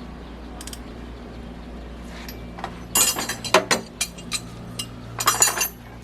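Sharp metallic clinks and rattles, in two quick clusters about three seconds and five seconds in, over a steady low hum.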